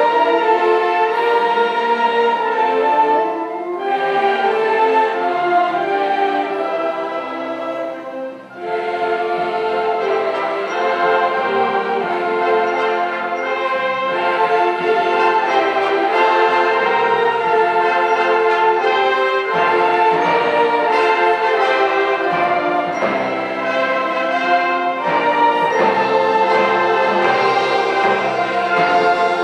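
Large mixed choir singing with a brass band accompanying, the music full and continuous. It thins out for a moment about eight seconds in, then comes back in full.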